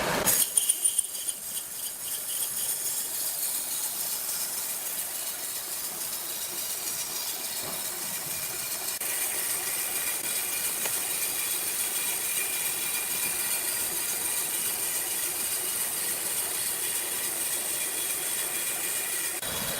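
Sawmill machinery running steadily: a continuous hiss with a faint high whine. A few sharp knocks come in the first second.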